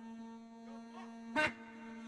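A mijwiz (Arab double-pipe reed) holding one steady, buzzy drone note, with a single loud sharp hit about two-thirds of the way in, one of a string of hits about a second apart that keep the beat for the dabkeh.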